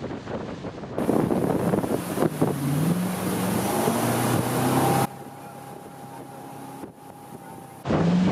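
Wake boat's inboard engine running under throttle with rushing water and wind buffeting the microphone; the engine pitch climbs a couple of seconds in. The sound drops abruptly about five seconds in to a quieter hum and jumps back to full level near the end.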